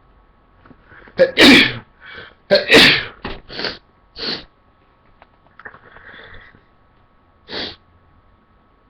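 A man sneezing twice in quick succession, about a second apart. Several shorter, quieter bursts of breath follow.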